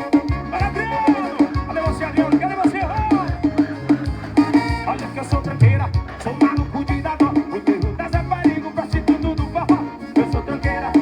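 Upbeat Latin-style music with a steady beat, percussion and singing.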